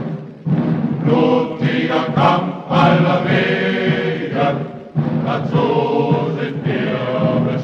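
A choir singing a German folk song.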